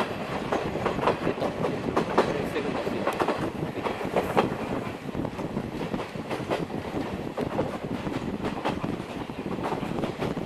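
Steam-hauled passenger train running along the track, heard from aboard: a steady rumble with the wheels clattering in irregular clicks and knocks over the rail joints.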